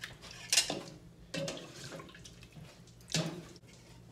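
Pozole being served into a bowl: three short splashing pours of broth and hominy.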